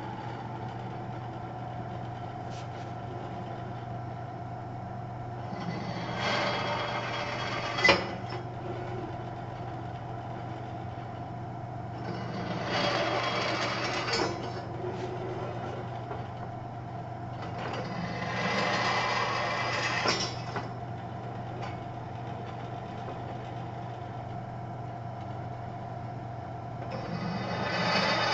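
Drill press motor running at a slowed speed while a 13/32-inch twist bit enlarges quarter-inch pilot holes in metal. The bit cuts in three passes of about two seconds each, each ending with a sharp click, and a fourth cut begins near the end.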